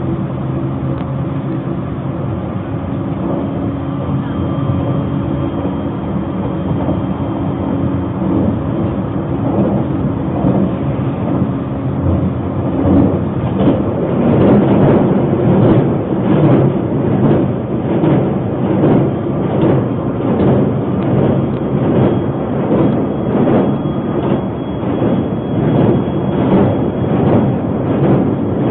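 Narita Express train running, heard from inside the carriage: a steady rumble of wheels on rail with a low hum. About halfway through, as it rolls onto a steel truss bridge, it grows louder with a rhythmic beating about twice a second.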